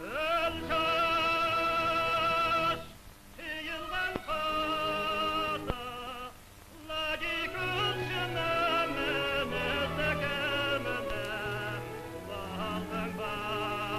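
Operatic soprano singing long, high held notes with wide vibrato over orchestral accompaniment, from an old archival sound recording. The phrases are separated by brief breaks about three and six seconds in.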